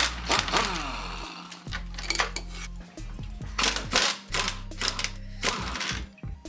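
Pneumatic impact wrench working on front-suspension bolts in several short bursts, with metal tool clinks, over background music with a steady bass line.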